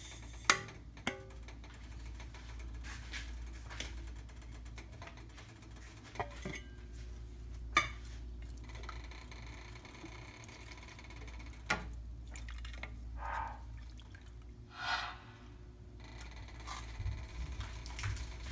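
Kitchen utensils clinking and scraping against cookware: a handful of sharp, widely spaced clinks and a couple of brief scrapes, over a low steady hum.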